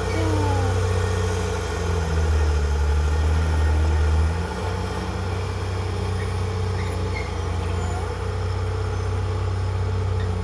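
Diesel engine of a heavy earthmoving machine running with a steady low hum, louder for about two seconds near the middle, then settling back to a steady run.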